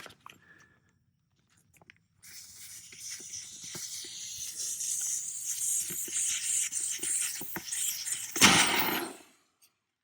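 Air hissing out of an inflatable tent's opened deflation valve as its air beams go down, a steady hiss that begins about two seconds in, gets a little stronger, and surges loudly near the end before stopping.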